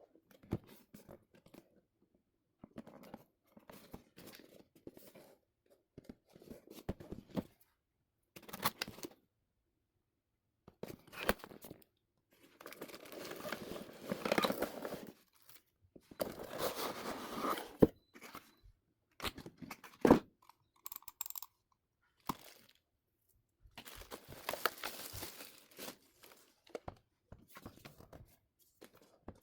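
Keyboard packaging being opened by hand: intermittent rustling, crinkling and tearing of wrapping, in bursts of a second or two with quiet pauses, and a few sharp knocks of the box or keyboard being handled.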